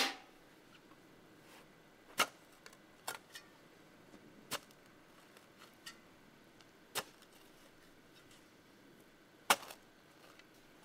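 Sharp single clicks or knocks: a loud one about every two and a half seconds with a few fainter ones in between.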